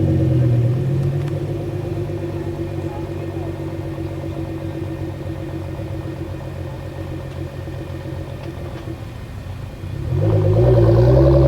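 Sports car engine idling with a steady rumble as it settles from a rev, then revved once near the end, the pitch rising and falling back.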